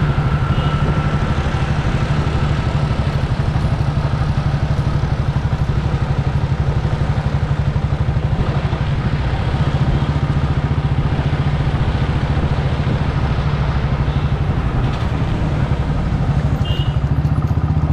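A motorcycle engine running steadily under way, with a fast even pulse from its firing, over a constant haze of road noise.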